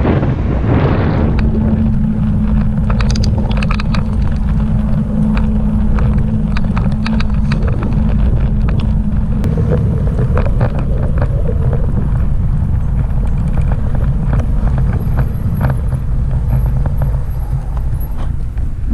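Himiway Cruiser electric bike being ridden: heavy wind buffeting on the microphone and rough ground noise, with a steady hum starting about a second in and many small clicks and rattles.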